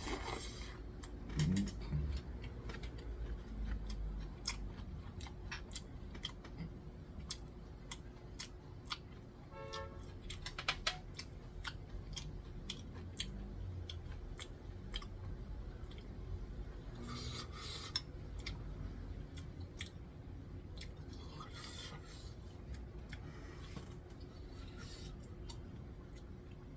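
Eating sounds: irregular clicks and light clinks of utensils against bowls and dishes, with chewing in between. One clink about ten seconds in rings briefly.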